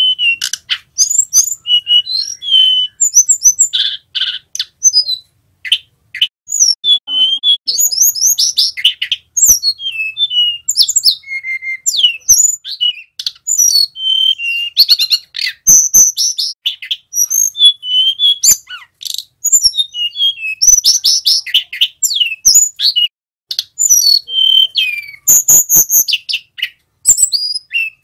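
Male hill blue flycatcher (tledekan gunung) singing a rapid, varied run of high whistles, slurred glides and trills with hardly a pause, the rolling 'ngerol' song. A few short clicks come through, most of them near the end.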